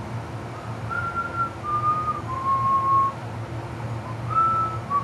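A person whistling a slow, idle tune: clean held notes that step downward in pitch, in two phrases, the second starting about four seconds in. A steady low hum runs underneath.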